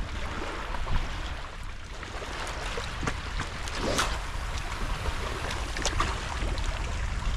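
Wind buffeting the microphone over estuary water lapping at the marsh edge, with a few short sharp clicks, one about four seconds in and another about two seconds later.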